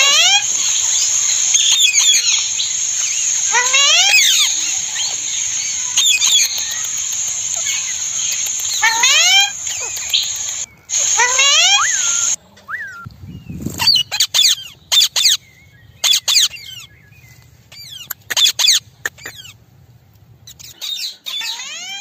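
Indian ringneck parakeets (rose-ringed parakeets) calling: a rising call repeated every couple of seconds through the first half, then shorter, sharper calls in quick clusters in the second half.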